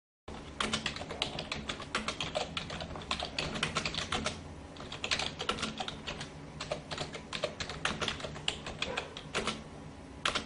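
Typing on a computer keyboard: rapid, irregular key clicks, dense and uneven in pace, over a faint low hum. It begins a moment in, after a brief silence.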